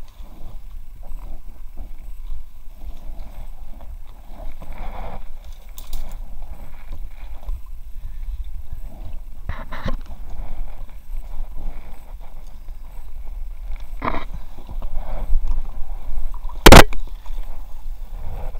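Reeds and branches rustling and scraping against the camera as an inflatable kayak pushes through overgrown shallows, over a low rumbling handling noise. Scattered knocks run through it; a few are sharp, and the loudest comes near the end.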